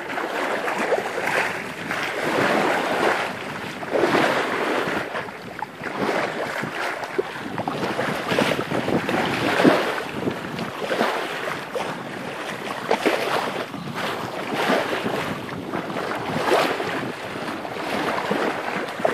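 Sea water rushing and splashing at the bow of a Tahiti ketch under sail, surging louder and softer every second or so, with wind buffeting the microphone.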